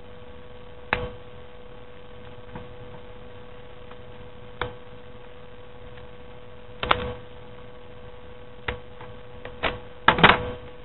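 Scissors snipping through folded paper: short sharp snips every second or two, with several in quick succession near the end, over a steady electrical hum.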